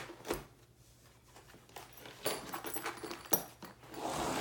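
Dalstrong Nomad waxed canvas knife roll being rolled up by hand: the stiff canvas rustles and scrapes, with a few sharp clicks and knocks, and a longer, louder rustle near the end as the roll and its strap are moved.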